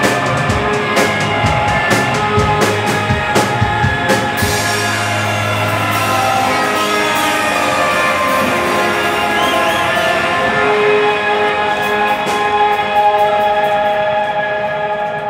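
Rock band playing live, with electric guitar and a drum kit. The drum hits stop about four seconds in, and the guitars ring on in sustained notes.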